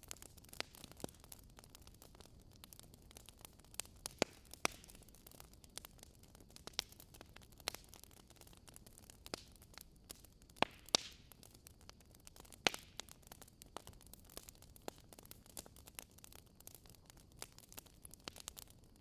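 Wood fire crackling in a fireplace: irregular sharp pops and snaps, a few louder than the rest, over a faint steady hiss.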